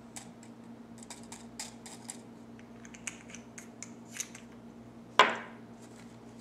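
Small light clicks and rustles of hands handling a small scented-oil bottle among artificial rose petals, then a single sharp knock with a short ring about five seconds in.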